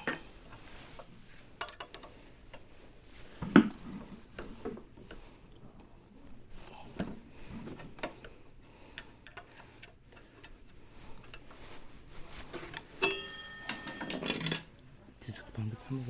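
Metal hand-tool work on a scooter's front disc brake caliper: scattered clicks and clinks of a wrench on the caliper mounting bolts, a sharp knock about three and a half seconds in, a ringing metal clink about thirteen seconds in, then rattling as the caliper comes off.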